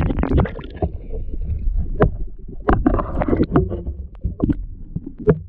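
Muffled underwater sound picked up by a camera held below the surface: a low water rumble and gurgling, with irregular knocks and clicks of water and handling against the camera housing. It drops away sharply near the end.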